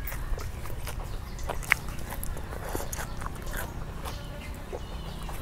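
Close-up chewing and eating of charred grilled chicken: irregular wet mouth clicks and small crunches, over a low steady rumble.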